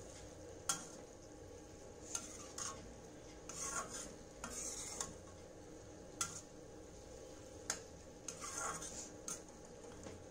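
Steel spatula scraping and clinking against a black iron kadai as pressure-cooked mutton pieces are stirred into a thick masala, with a low sizzle underneath. The scrapes come irregularly, about once a second.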